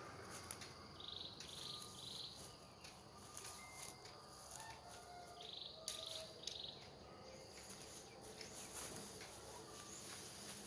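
Birds and insects calling: a high, pulsed three-note call repeats about every four to five seconds over fainter chirps, with scattered crackles of dry leaves and twigs underfoot.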